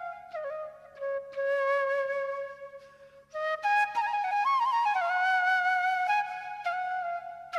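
Background music of a solo flute playing slow, held notes that slide from one pitch to the next, with quick ornamental wavers. It plays softly through the first half and comes in fuller about three and a half seconds in.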